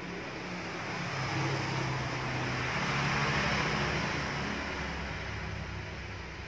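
A motor vehicle engine passing by, its sound rising to a peak about three seconds in and then fading away.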